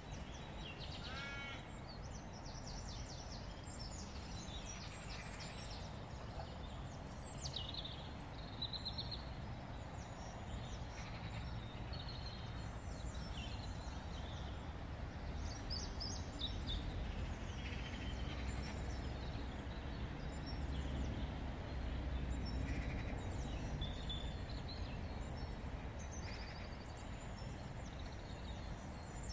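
Several songbirds chirping, trilling and whistling in short, scattered calls, over a steady low rumble that grows louder in the second half.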